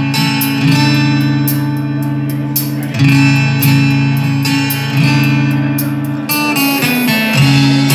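Acoustic guitar playing the slow intro of a quiet song: strummed chords that ring on, changing every second or two.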